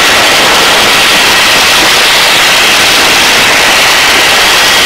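Loud, steady hiss-like noise of a hovering search-and-rescue helicopter on the crew's audio recording, with faint steady high tones running through it.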